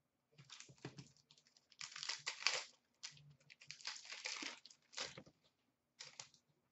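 Foil trading-card pack wrapper being torn open and crumpled by hand: a run of crinkling, crackling bursts, loudest about two seconds in, with one short last crackle about six seconds in.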